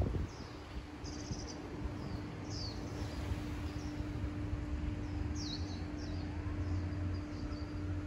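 Birds chirping outdoors: short high chirps, one or two a second, over a low rumble of outdoor background noise and a faint steady hum.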